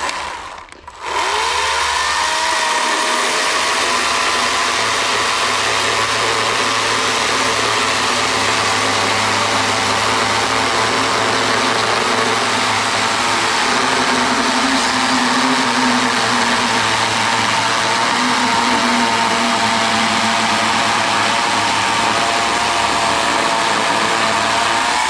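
Ego 16-inch cordless electric chainsaw spinning up with a rising whine about a second in, then running steadily as it cuts a round off a log. It stops abruptly at the end.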